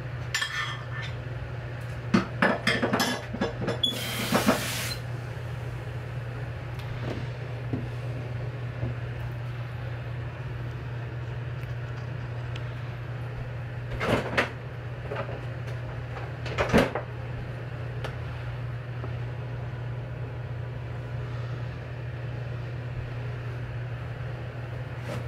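Kitchen handling sounds: scattered knocks and clinks of utensils, dishes and cupboard doors, a cluster in the first few seconds with a brief hiss about four seconds in, and two more knocks around the middle. A steady low hum lies underneath.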